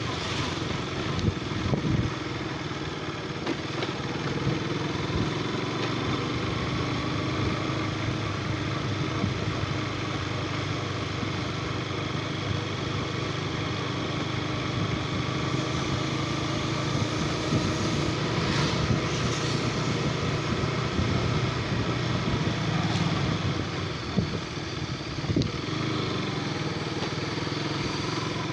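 Motorcycle engine running steadily on the road, with traffic noise around it and a couple of brief knocks near the start.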